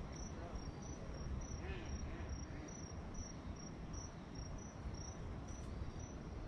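An insect chirping steadily, about three short high-pitched chirps a second, over a steady low rumble.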